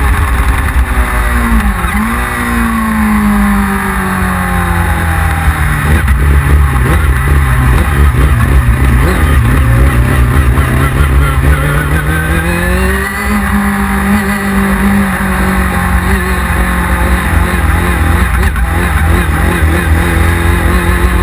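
1999 Yamaha R6's 600 cc inline-four engine running under way with a misfire. Its pitch dips briefly about two seconds in, falls a few seconds later, rises again past the middle, then holds steady.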